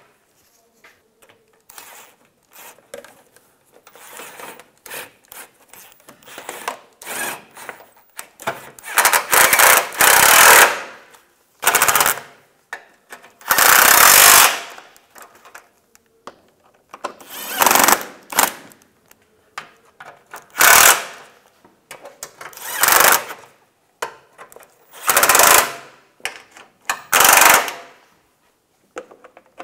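Power driver on a long socket extension running screws into the plastic under-bumper shield, in short bursts of about a second, some eight times. The first several seconds hold only quieter handling sounds.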